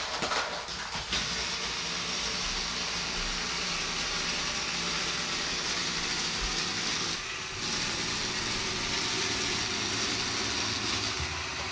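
Steady hissing noise with a few clicks in the first second; the hiss drops out briefly about seven seconds in, then carries on.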